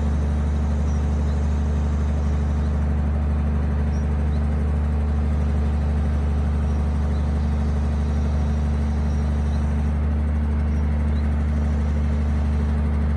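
MB-trac tractor's diesel engine running at a steady speed, a constant low drone, while the timber trailer's hydraulic log crane lifts a bundle of logs.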